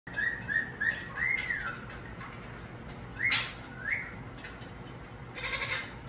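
Indian ringneck parakeet squawking in short, arching calls: three quick ones, a longer drawn-out one, then two more about three seconds in, and a rougher call near the end.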